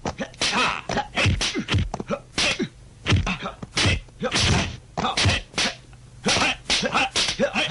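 Dubbed kung fu film fight sound effects: a rapid series of sharp punch and kick hits, with short falling shouts from the fighters between the blows.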